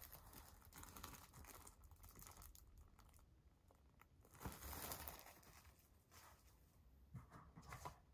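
Quiet crinkling of clear plastic wrap as hands peel and handle it off a vinyl LP jacket. The loudest rustle comes about halfway through, with more short crinkles and small clicks near the end.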